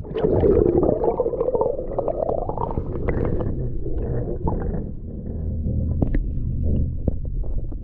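Water heard through a waterproof action-camera housing as it plunges below the surface: muffled sloshing and rumbling, loudest in the first couple of seconds, then a steadier low underwater rumble with scattered clicks and pops.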